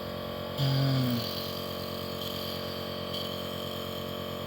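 Philips compressor nebulizer running steadily, its motor giving a constant hum while it turns the Ventolin into mist for inhalation. About half a second in, a person gives a short hummed 'mm' sound.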